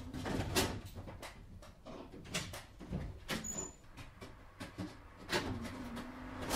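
Düwag GT6Z tram: irregular knocks and clatters, about one or two a second, over a steady low rumble.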